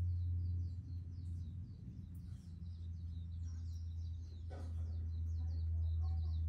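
Small birds chirping in a quick, continuous run of short high notes over a steady low hum.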